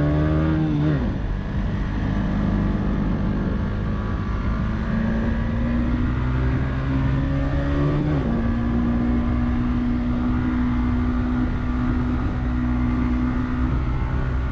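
Honda CB150X's single-cylinder engine running on the road, its note climbing slowly under acceleration and dropping sharply at upshifts about a second in and about eight seconds in.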